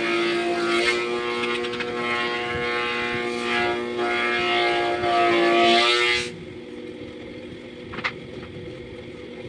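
A power tool's electric motor running steadily with a constant hum. It is loud for about six seconds, then drops suddenly to a quieter, lower hum.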